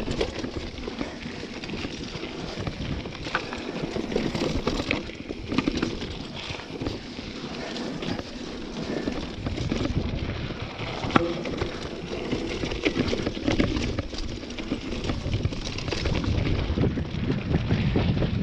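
Mountain bike riding down a rocky dirt trail: tyres crunching over dirt and stones, with frequent clicks and knocks as the bike rattles over rocks, and wind rumbling on the microphone, growing louder near the end.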